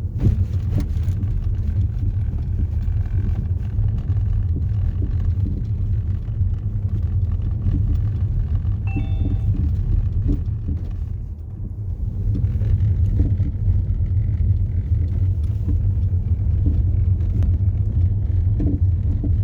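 Inside the cabin of a 2012 Audi A5 2.0 TDI driving over a rough road: steady low road and tyre rumble with occasional short knocks from the front suspension, which the mechanic likens to the noise of worn stabilizer links and stabilizer bushings.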